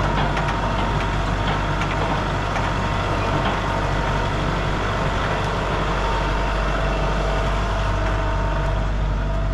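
An engine running steadily at an even idle, with a low hum and a faint steady higher whine over it.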